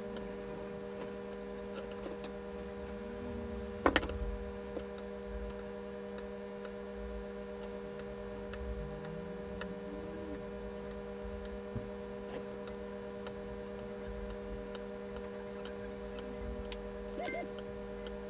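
Hand soldering on a circuit board: faint ticks and small clicks from the iron tip and solder wire on the socket pins over a steady electrical hum, with one sharp click about four seconds in.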